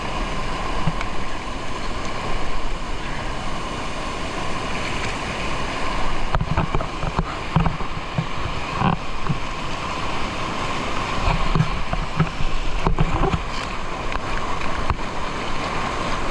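Waterfall pouring into a strong current: a steady, loud rush of falling and churning water, with irregular low rumbles.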